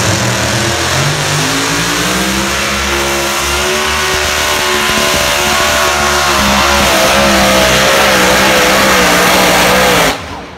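Modified pulling truck's engine at full throttle while dragging a weight-transfer sled, its pitch climbing over the first few seconds and then holding high and loud. It cuts off abruptly near the end as the pull ends.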